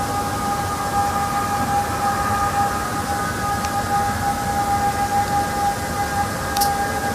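Steady, unexplained drone in the sky: one held mid-pitched tone with a few fainter higher tones above it, over a noisy rumble.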